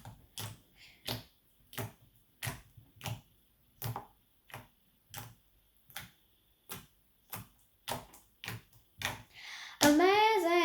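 Clear glue slime being worked by hand, giving off sharp clicking pops about one and a half times a second. Near the end a girl's voice starts humming.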